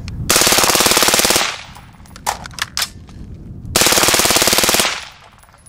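Suppressed LaRue SUURG 5.56 mm rifle firing full auto: two bursts of rapid shots, each a little over a second long, about three seconds apart, with a few single clicks in between.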